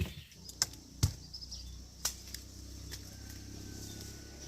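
Three sharp knocks or chops within the first two seconds, over a low steady rumble, with faint high chirps in the background.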